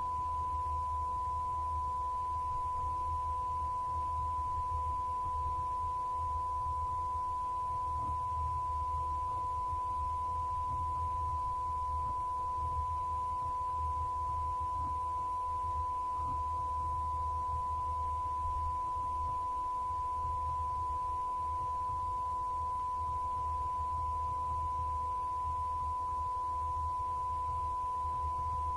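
A continuous electronic test tone at one unchanging pitch, with a faint low hum beneath it.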